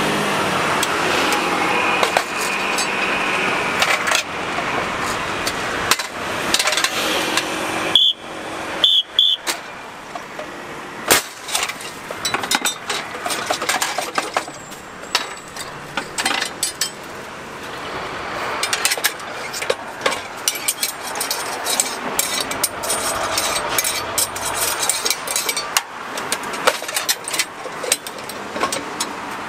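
Rice-puffing pressure cooker running with a steady mechanical noise. About eleven seconds in comes a single sharp bang as the cooker is opened and the puffed rice blasts out into the catching cage. After it come hissing steam and scattered metallic clatter.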